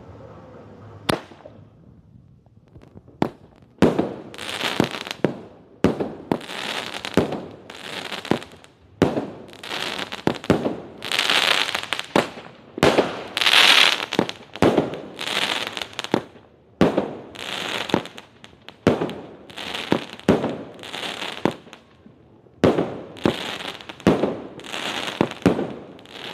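A 25-shot skyshot firework cake firing its shots one after another, about one a second, each sharp bang trailed by a crackling, hissing burst. A single crack comes about a second in, and there is a short lull near the end before the shots resume.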